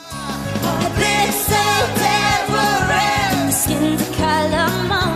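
A woman singing an up-tempo pop song in English over a full backing band with drums and bass and a steady beat.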